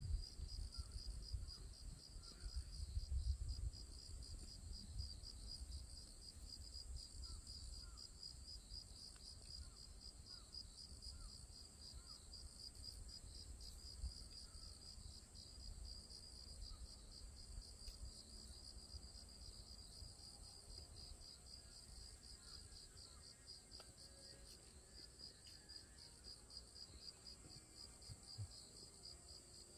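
Faint insects trilling steadily in quick, even pulses, with a low rumble in the first few seconds.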